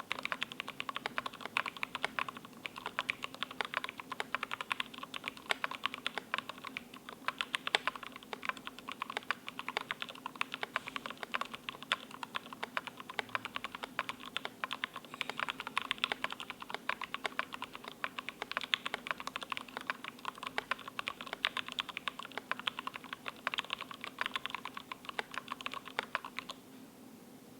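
Continuous fast typing on a mechanical keyboard: an ID80 with acrylic bottom case and PCB foam, fitted with Gateron Black Ink V2 linear switches lubed with Krytox 205g0 and PBT keycaps. The keystrokes stop abruptly about a second before the end.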